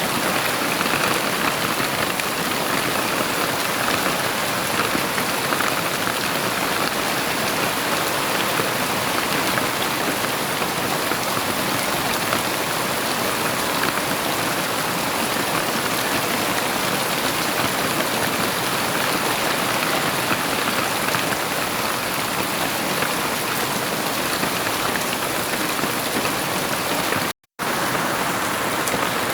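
Heavy rain falling steadily as an even hiss. It cuts out to silence for a split second near the end, then carries on as before.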